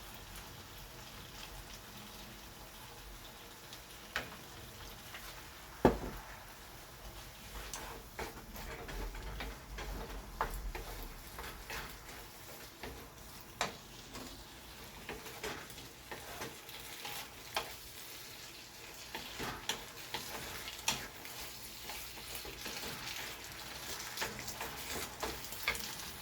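Diced chicken and vegetables sizzling in a frying pan while being stirred, with repeated sharp clicks and knocks of the utensil against the pan, the loudest about six seconds in.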